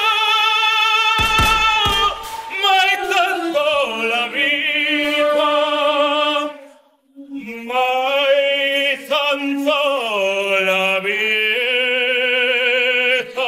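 Operatic-style singing over music, long held notes with wide vibrato, breaking off briefly about seven seconds in. About a second in, a quick run of sharp bangs, gunshots, cuts across the singing.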